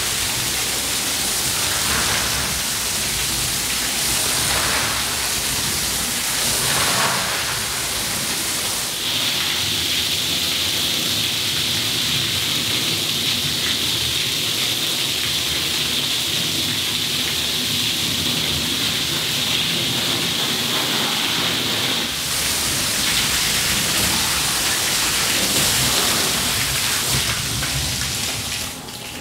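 Rinse water spraying onto a soaked rug and the wet floor of a wash pit, a steady hiss and splatter. A brighter, higher hiss joins in for a long stretch in the middle, and the spray stops just at the end.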